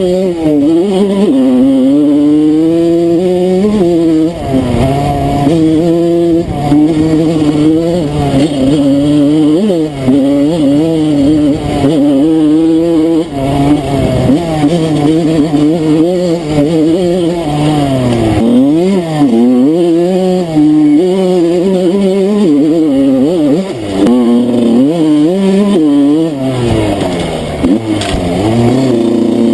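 Enduro motorcycle engine revving up and down while riding off-road, its pitch rising and falling every second or two without a break. Near the end it settles lower and quieter.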